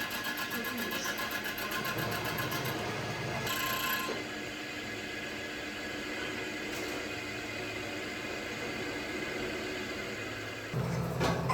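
Workshop machinery running steadily with a constant hum. Its sound changes about four seconds in and grows louder near the end.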